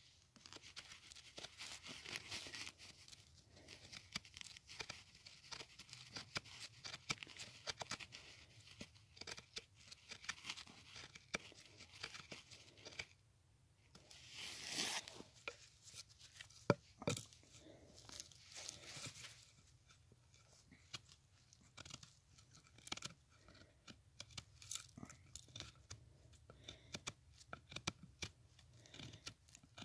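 Mora Bushcraft Black knife blade carving a piece of wood in short strokes: faint repeated scraping and tearing of wood fibres, with a longer rasping cut about halfway through and a single sharp click just after.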